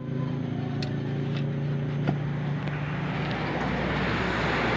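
A motor vehicle engine running steadily with a low hum, with a few light clicks, while a rushing noise slowly swells louder toward the end.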